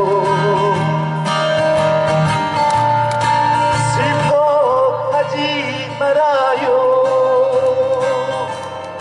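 A man singing a slow song with long held notes, accompanying himself on acoustic guitar.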